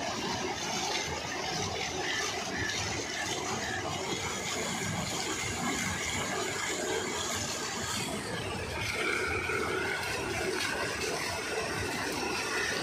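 Steel paddle-wheel water lift churning and splashing as it scoops canal water and throws it up in spray, a steady rush of water, with an engine running underneath.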